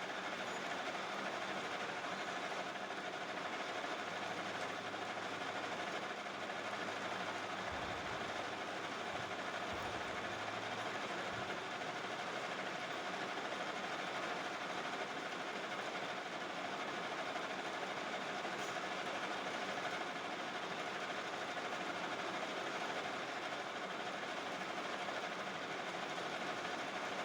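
Metal-turning lathe running steadily: an even mechanical hum with a constant whine, and a few brief low thuds about eight to eleven seconds in.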